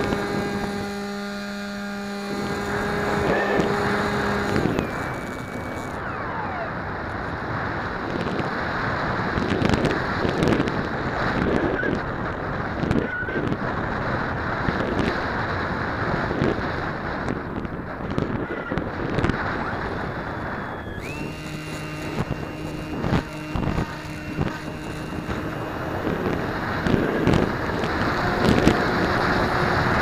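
Brushless electric motor of a Multiplex EasyStar RC plane whining at a steady pitch, with airflow buffeting the onboard camera's microphone. The motor cuts out about four seconds in, leaving only wind rush, and comes back on about two-thirds of the way through at a lower pitch.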